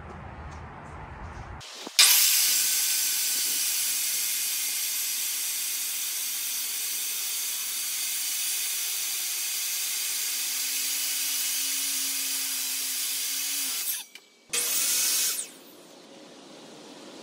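Electric sliding miter saw running and cutting through a 4x6 Douglas fir beam: a loud, steady noise that starts suddenly about two seconds in and lasts about twelve seconds. A second, brief run of the saw, about a second long, follows near the end.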